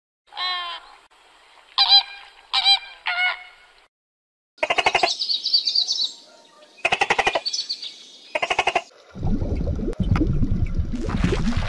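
Flock of flamingos giving short, goose-like honking calls in a broken series through the first two thirds. After about nine seconds, a low, steady rush of water takes over.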